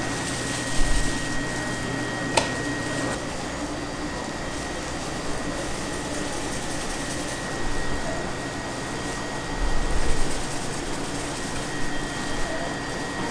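A steady mechanical whirring drone, like a fan, with a faint high whine and a sharp click a little over two seconds in.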